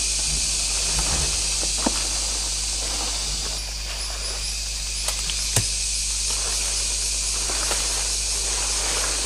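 Steady high buzz of insects in a tropical forest, with a faint pulsing call joining about three and a half seconds in. Scattered light rustles and twig snaps from someone moving through the undergrowth; the loudest is a sharp snap about five and a half seconds in.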